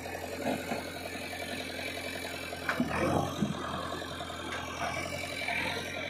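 Diesel engine of a JCB 3DX backhoe loader running steadily, with a few knocks and rattles about three seconds in.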